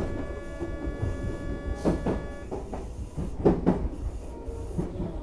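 Odakyu 8000 series electric commuter train heard from its front car: low rumble with a steady whine that stops about two and a half seconds in, and a few heavy knocks around two and three and a half seconds in.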